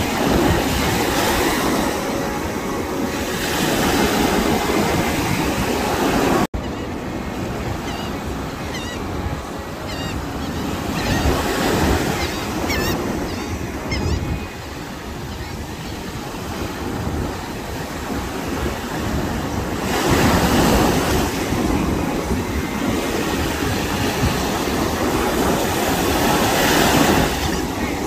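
Small waves breaking and washing up a sandy beach: a continuous surf rush that swells as each wave breaks, every several seconds. There is a very brief dropout about six and a half seconds in.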